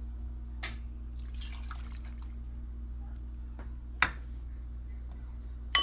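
Vinegar poured from a bowl into a steel cooking pot, splashing and dripping briefly about a second and a half in. A sharp knock of dishware comes about four seconds in, and a louder clink with a short ring comes at the very end.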